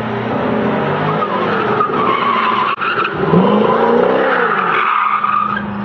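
Sports car's engine revving hard while its tyres squeal through a sliding turn, the squeal and the revs rising and falling together.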